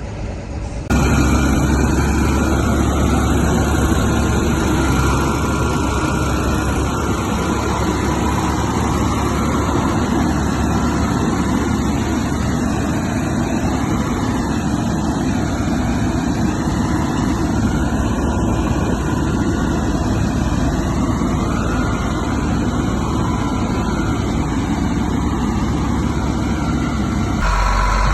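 Caterpillar bulldozer's diesel engine running steadily with a heavy, low rumble, which comes in suddenly louder about a second in.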